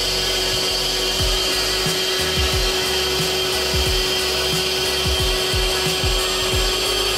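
CNC 6040 router's spindle running with a steady whine while a small end mill drills a pattern of holes into the clamped board.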